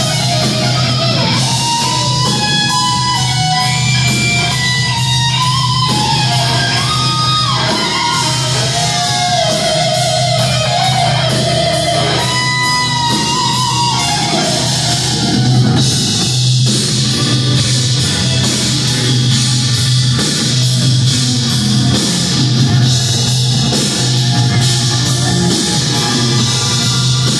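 Live heavy metal played by a trio: a distorted lead electric guitar plays fast melodic lines with slides and bends over electric bass and a drum kit, through Marshall amplifier stacks. The lead melody stands out most in the first half, then the sound thickens into a denser wall.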